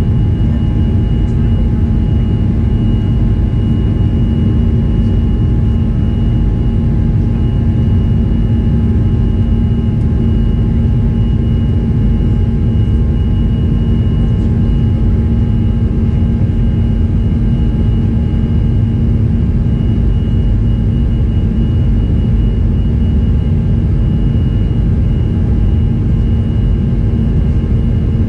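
Inside the cabin of a Boeing 737-300 over the wing: the CFM56-3 turbofan engines at climb thrust make a loud, steady rumble with a constant low hum and a faint high whine above it.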